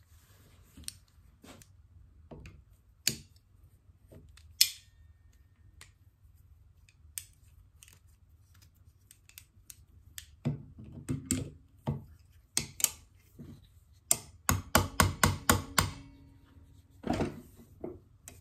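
Tools and small metal parts handled on a workbench: scattered clicks and knocks, then near the end a quick run of about eight sharp taps, about four a second.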